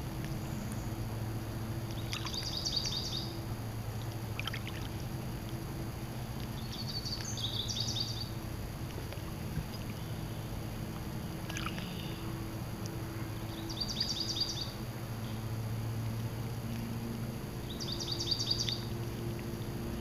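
Lake water lapping steadily against the shore. A small bird sings a short, high, rapid phrase four times, every four to six seconds.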